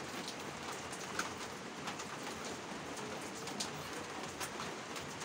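Steady hiss of background noise with faint scattered ticks.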